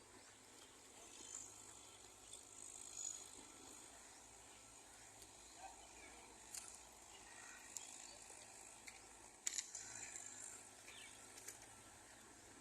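Near silence: faint outdoor ambience with a steady high hiss, a few short faint bird chirps, and two quick sharp clicks about three-quarters of the way through.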